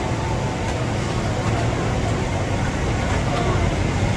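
Busy restaurant kitchen ambience: a steady low rumble with an even noisy hiss over it and faint voices in the background.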